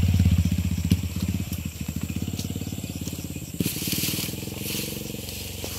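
Grass and brush rustling and crunching as someone pushes through the vegetation, loudest about four seconds in. Under it runs a low, evenly pulsing hum that fades over the first few seconds.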